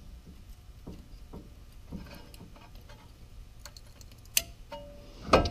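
Scattered light clicks and taps of small metal brake-pad clips being handled and fitted on the caliper bracket, with a sharper metallic click about four and a half seconds in and another near the end.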